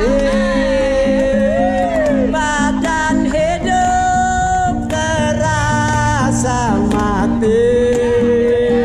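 A man's voice singing a song in long held notes, with the pitch sliding at the ends, over a small guitar being strummed.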